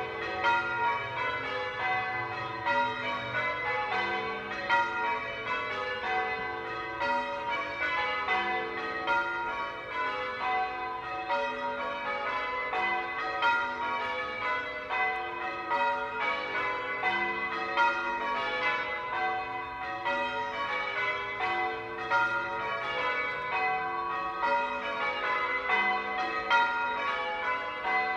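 Church bells being rung, several bells struck one after another in a steady, unbroken run, their tones overlapping and ringing on.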